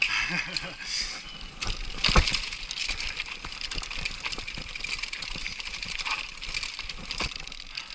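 Trek Superfly mountain bike riding down a dirt forest trail: steady tyre noise on the loose ground with frequent rattles and knocks from the bike over bumps, the loudest knock about two seconds in.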